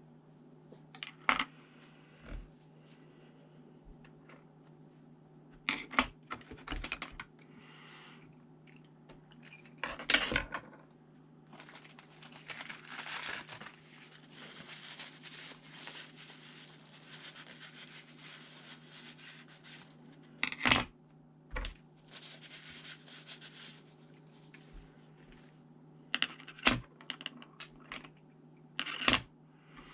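Small hard laptop parts and tools handled on a work surface: a handful of sharp clicks and knocks, with several seconds of rubbing or scraping in the middle, over a steady low hum.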